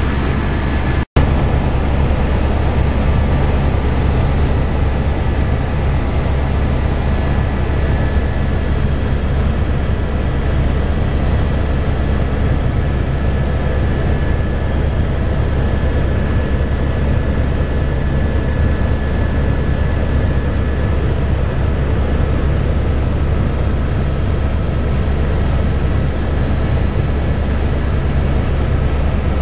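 Tour helicopter in flight: a steady low engine and rotor drone with a faint high whine over it. The sound cuts out for a moment about a second in.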